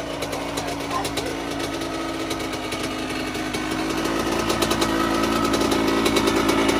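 Suzuki RM85's 85cc single-cylinder two-stroke engine running steadily, fitted with a brand-new piston and being run in. It grows louder through the second half.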